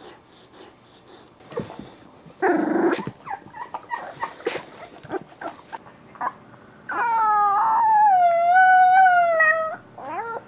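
Two-week-old Boxer puppy howling: one long, wavering howl of about three seconds that drops in pitch at the start and then holds, followed by a short rising-and-falling cry near the end. Earlier there is a brief loud rough cry and a few short snuffling sounds.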